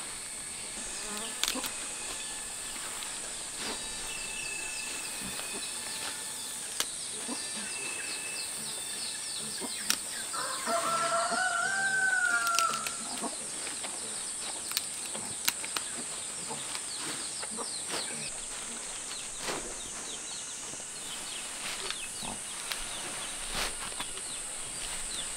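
Steady high-pitched insect drone over the scattered snaps and rustles of leafy greens being handled and trimmed. Two short high chirps come early, and a louder drawn-out call rises and falls for about two seconds near the middle.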